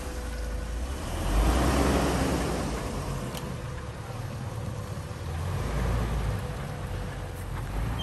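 Jeep Wrangler Rubicon's 4.0-litre straight-six running as the Jeep pulls away and drives through deep snow, swelling about a second in and again around six seconds in.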